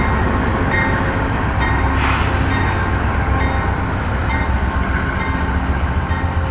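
Amtrak Lincoln Service passenger train pulling out of the station, its diesel locomotive running under power with a deep, steady rumble. A short burst of hiss comes about two seconds in.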